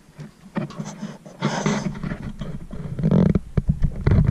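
Handling noise: irregular knocks, clicks and rubbing as the Cobb Accessport and its USB cable are picked up and plugged into the laptop, with a short low rough rumble about three seconds in.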